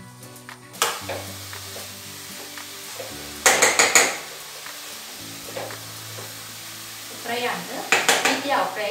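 Grated carrots frying with a steady sizzle in a steel pan over a gas flame while a spoon stirs them. The spoon scrapes and clatters against the pan in two short bursts, about halfway through and again near the end.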